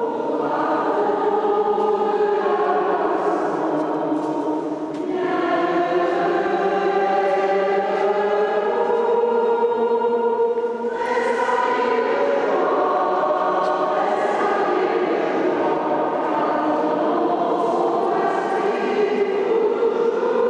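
A group of voices singing a hymn together in a church, in long held phrases with short breaks about five and eleven seconds in.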